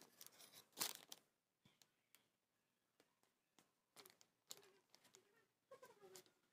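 Near silence with a few faint rustles and clicks from handling a paper carry bag and a paper food bowl, the loudest a short rustle about a second in.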